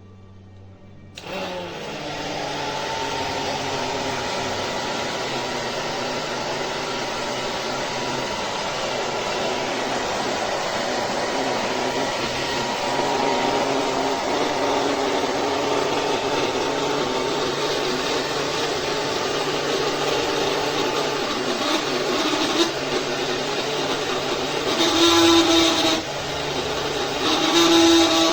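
Wavytalk 1875 W ionic hair dryer switched on about a second in. Its motor whine rises as it spins up, then it blows steadily with an even rush of air. It gets louder in two brief surges near the end.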